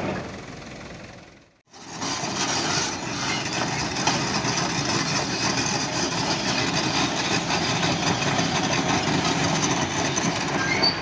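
Heavy diesel construction machinery running loudly under load, with a steady mechanical clatter. The sound dips away to almost nothing about a second and a half in, then comes back.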